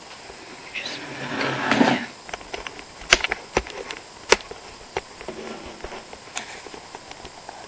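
Camera handling noise: clothing rubbing against the microphone for about a second, then scattered clicks and knocks, the two sharpest about three and four seconds in.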